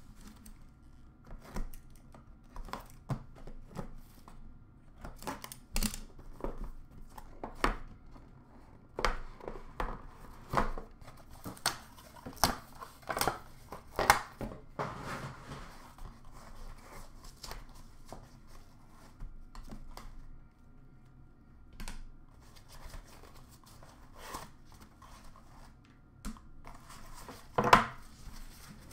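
Hands opening and unpacking a cardboard trading-card box: cardboard and plastic packing rustling, tearing and crinkling, with scattered short knocks and clicks. The loudest knock comes near the end.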